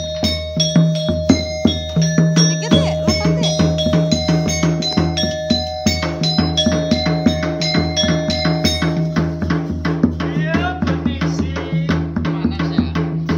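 Topeng monyet street-show music: a fast, even drum rhythm over a held low drone, with short ringing bell-like notes above.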